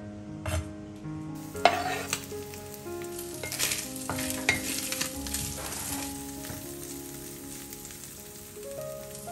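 Ground beef with sun-dried tomatoes and garlic sizzling in a stainless steel frying pan while a wooden spoon stirs it. The spoon knocks and scrapes against the pan several times, loudest about one and a half seconds in.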